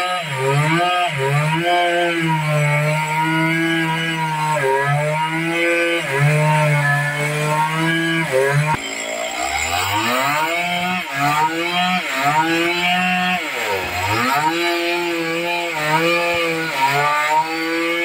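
Stihl two-stroke chainsaw running at full throttle while cutting into a large trembesi (rain tree) log. The engine pitch sags as the chain bites and recovers several times, with a deep drop and climb back about fourteen seconds in.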